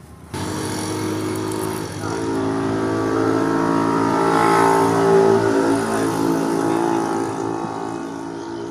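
Motor vehicle engine running loudly. It cuts in suddenly just after the start, swells to a peak around the middle as if revving or drawing closer, then eases off a little.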